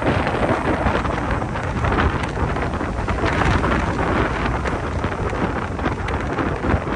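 Hurricane-force wind buffeting the microphone in a steady loud rumble, over heavy surf breaking on the beach.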